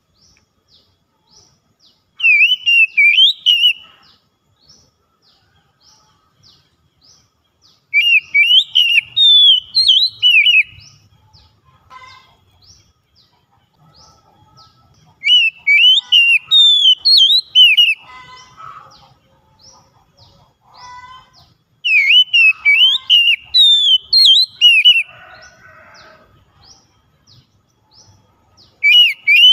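Oriental magpie-robin singing: four loud bursts of rapid, rising and falling whistled notes, each two to three seconds long and coming every six or seven seconds, with faint short high notes in the gaps between.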